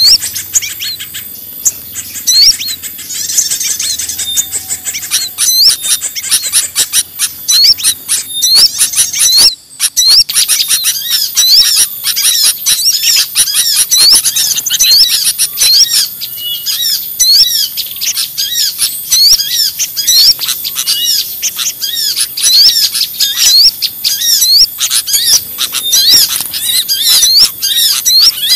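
A clamorous chorus of many small songbirds chirping and calling at once: rapid, repeated high chips and short notes over a steady high hiss. This is a bird-lure (pikat) recording of noisy small birds, used to draw other small birds in. The sound breaks off briefly about nine and a half seconds in, and the calling is denser after that.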